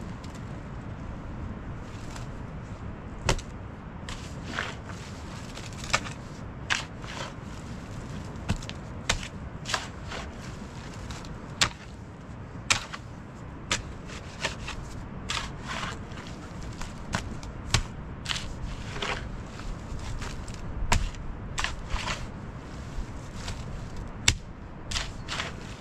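Irregular sharp knocks and clicks, roughly one or two a second, over a steady low rumble of background noise.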